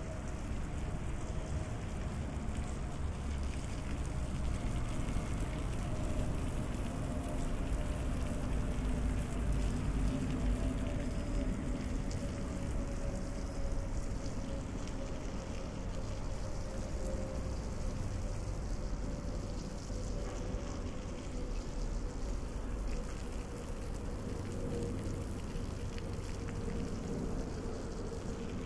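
Steady low street-traffic rumble, with a hum that slowly drops in pitch throughout.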